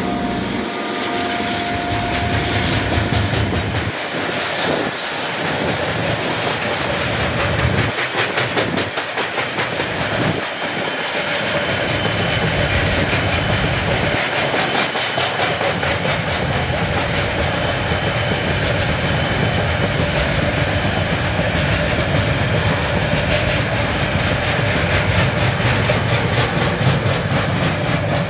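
A train passing close by, its wheels clattering rapidly over the rails above a steady low rumble. A horn tone fades out in the first second or so.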